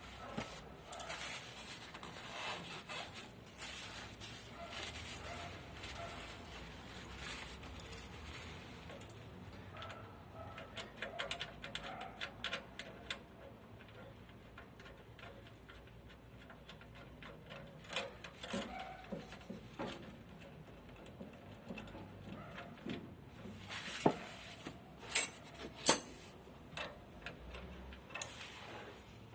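Hand tools and metal burner parts being handled, giving scattered small clicks, taps and rubbing, with a few sharper metallic clicks near the end.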